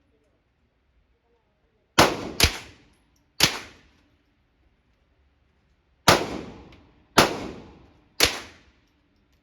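Six gunshots at a shooting range, sharp cracks in uneven groups: two in quick succession about 2 s in, one more a second later, then three spaced about a second apart near the end. Each crack is followed by a short echoing tail.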